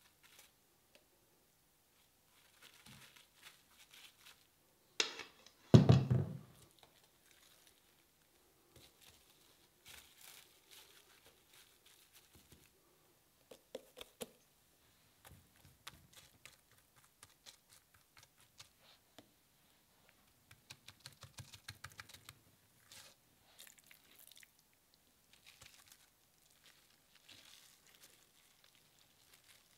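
Quiet kitchen handling: cling film crinkling as fish fillets are laid and pressed into a film-lined wooden mould, and a spoon scraping and clicking in a stainless-steel bowl. A louder thump comes about five to six seconds in.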